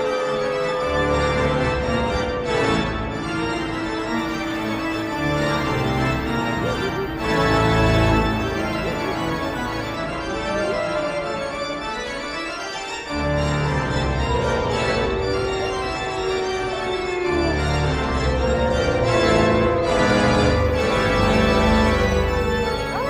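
Organ music playing sustained chords over a deep swelling bass, with a few long tones gliding up and down in pitch above it.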